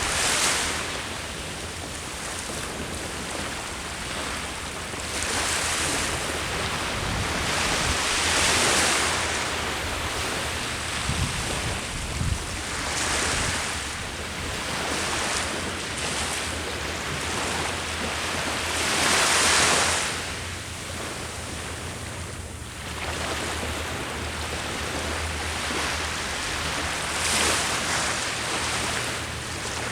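Sea waves breaking on the shore in slow surges, the loudest crashes about eight and twenty seconds in, with a steady low wind rumble on the microphone underneath.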